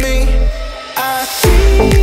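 Background music with electronic production. The bass and beat drop out for about a second, then come back in about one and a half seconds in, with deep kick drums that fall in pitch.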